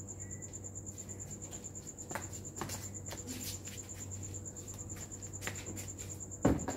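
A cricket chirping steadily in a high, rapidly pulsed trill, about ten pulses a second. Scattered clicks and knocks come over it, with one loud thump near the end.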